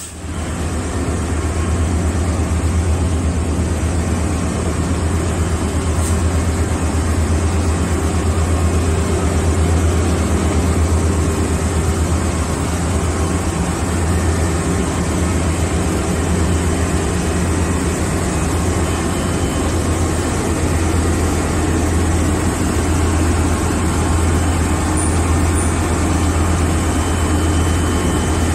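Diesel passenger train idling: a steady, unbroken low engine drone.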